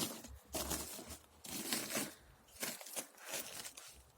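Dry papery wasp nest being torn apart by hand, crackling and tearing in several short, irregular bursts.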